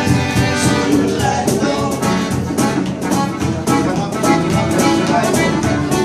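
A band playing live acoustic music, with strummed acoustic guitars keeping a steady, quick rhythm under held melody notes.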